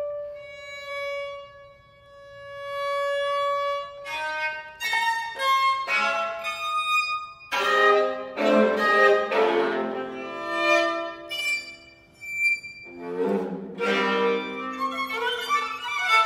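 Solo viola d'amore being bowed: a long held single note that swells and fades twice, then from about four seconds in quick, shifting notes and dense multi-note chords with sharp attacks.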